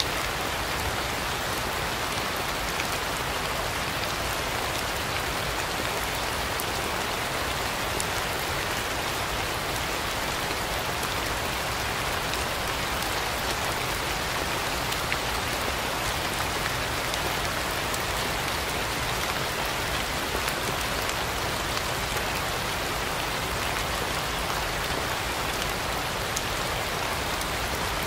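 Steady rain falling, an even hiss sprinkled with the small ticks of individual drops striking surfaces, with no thunder.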